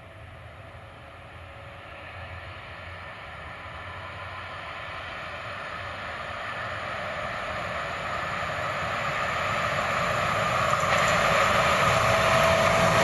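Electric locomotive hauling a passenger train on an overhead-wire line, approaching: a faint distant rumble grows steadily louder. A steady whine comes up strongly in the last few seconds as it nears.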